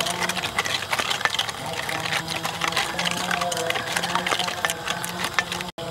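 Wooden spoon stirring wet batter in a stainless steel bowl: quick clicks and scrapes of the spoon against the metal with a wet slapping of the batter. The sound drops out briefly near the end.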